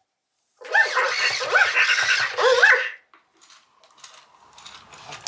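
Interactive plush toy pet giving a run of high, squeaky electronic animal cries that bend up and down, starting about a second in and lasting about two seconds. Faint clicking follows.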